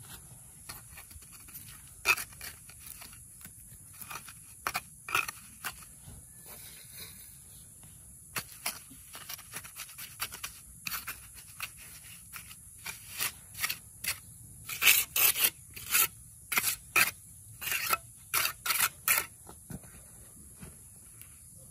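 A hand tool scraping in short, sharp strokes, sparse at first, then coming faster and louder at about two strokes a second in the second half before stopping.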